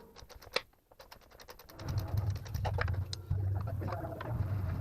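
Metal clicks and clinks of tools working on a truck frame, joined from about two seconds in by a low steady hum with more clicking over it.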